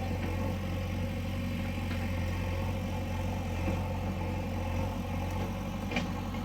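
JCB backhoe loader's diesel engine running steadily at a low, even speed.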